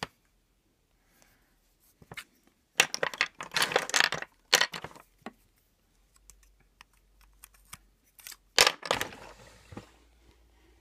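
Old hard rubber fountain pen caps and barrels clattering against each other in a drawer as they are sorted through by hand, in two bursts of clicks, one about three seconds in and a shorter one near the end.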